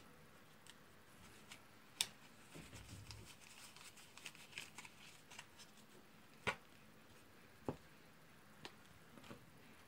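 Playing cards handled over a board: faint slides and rustles as the deck is spread and squared, with a few short sharp clicks, the loudest about two and six and a half seconds in.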